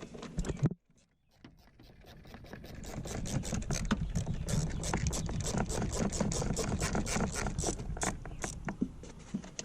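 Dry leaves and debris rustling and crackling as they are pulled out of a car's blower and cabin-filter housing, a dense run of quick crackles. It starts after a brief silence about a second in and grows louder. The leaves clogging the housing are taken for the cause of the A/C vent noise.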